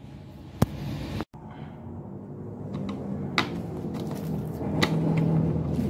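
Hands handling a plastic-wrapped mail parcel on a tabletop: a few sharp clicks and taps over a low steady hum that grows louder toward the end. The sound cuts out briefly about a second in.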